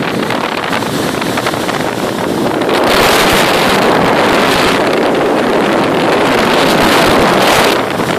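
Motorboat under way: water rushing and spraying off the hull, with wind buffeting the microphone. It grows louder about three seconds in and eases near the end.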